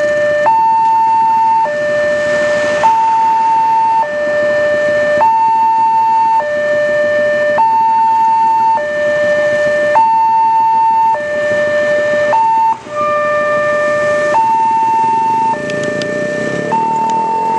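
Railway level-crossing warning alarm sounding two alternating electronic tones, high then low, each held about a second. Near the end, as the barrier lifts, the rumble of the waiting motorcycles' engines grows underneath it.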